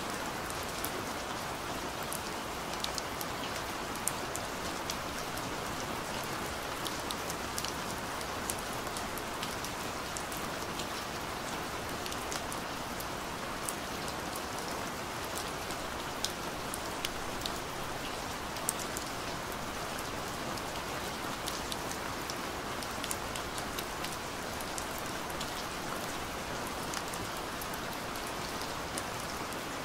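Steady rain: an even hiss with scattered sharp ticks of single drops.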